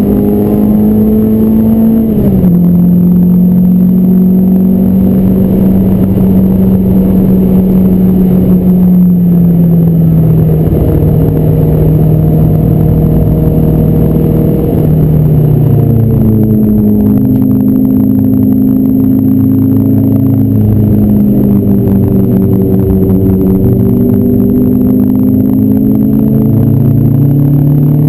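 Renault Clio 172's 2.0-litre four-cylinder engine running hard under load on track, heard from inside the cabin over tyre and road noise. Its note climbs over the first couple of seconds, then drops, holds, and falls away gradually around ten seconds in before pulling again.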